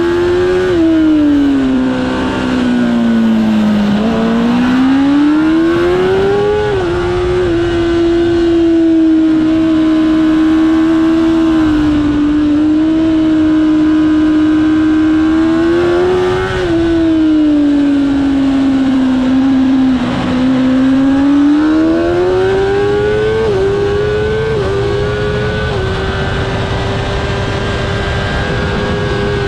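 Kawasaki ZX-10R superbike engine at racing revs heard onboard: its pitch falls as the bike slows for corners, climbs again under acceleration with a couple of quick gear changes, and holds steady through long fast stretches. Wind rush runs under it.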